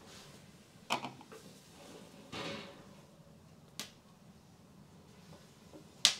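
Tabletop handling sounds: four light knocks and clinks as a plastic colander is set into a wooden bowl and the lid of a small metal container is lifted off and set down. The sharpest click comes near the end.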